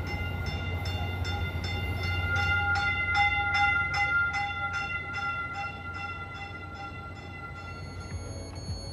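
Stadler KISS electric multiple unit pulling into the station, its pedestrian alert bell ringing over and over at about two and a half strikes a second over a low steady rumble. The bell stops about eight seconds in.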